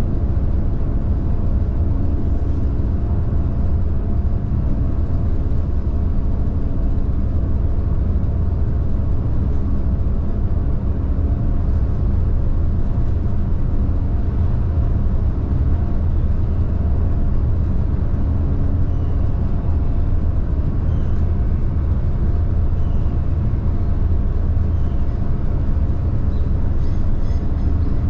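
Steady low drone of a car ferry's engines running, a deep hum with a few steady tones on top.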